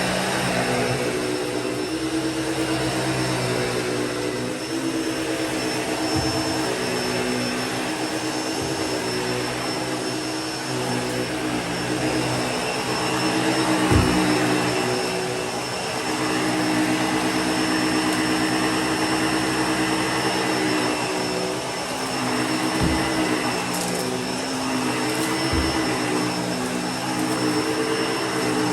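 Bissell Pet Hair Eraser Turbo upright vacuum running steadily while vacuuming carpet. Its motor tone shifts slightly as it works, with a few low knocks, the loudest about halfway through.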